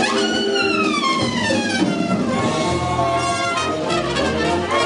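Live brass music: a trumpet drops off a high note in a long falling glissando over about two seconds, then the brass section holds chords, with a new entry near the end.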